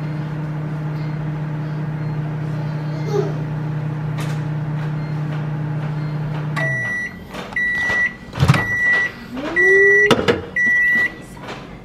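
Black+Decker 700-watt microwave oven running with a steady hum that stops as the timer runs out about seven seconds in. Five end-of-cycle beeps about a second apart follow, with a couple of clunks as the door is opened.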